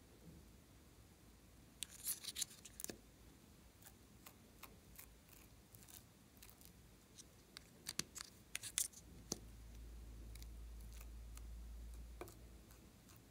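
Small plastic cosmetic tubes being handled and opened: clusters of sharp plastic clicks and taps, the biggest about two seconds in and again around eight to nine seconds in. A low steady rumble runs for about three seconds near the end.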